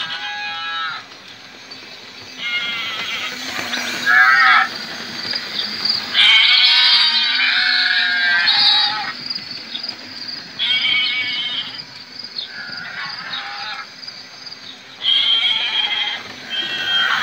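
Recorded sheep and goat bleats played by the sound units of model railway livestock wagons: a string of about nine calls, one every second or two, each with a wavering pitch.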